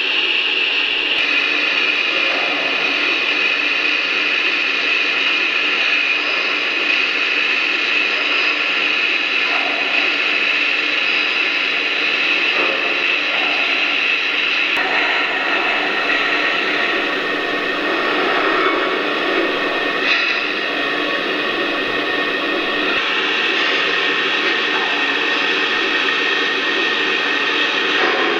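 Lionel Visionline Class A O-scale model steam locomotive running, with its onboard sound system giving a steady, loud hiss and rumble.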